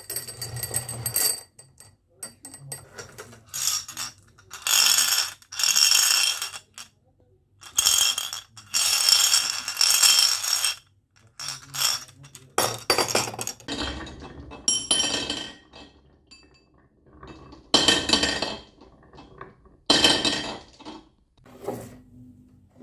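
Marbles rattling and clinking down a HABA marble run track, in short bursts of a second or so with brief gaps between them.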